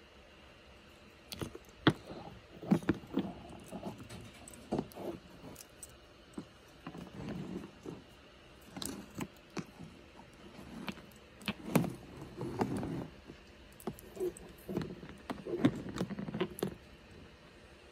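Boulder opal pieces handled by hand: irregular clicks and knocks as the stones are turned, bumped together and set down on a hard surface, with rustling handling noise between them.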